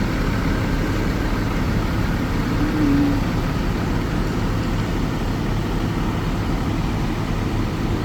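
Steady engine and road noise of vehicles on the move, a continuous low rumble, with one short steady tone about two and a half seconds in.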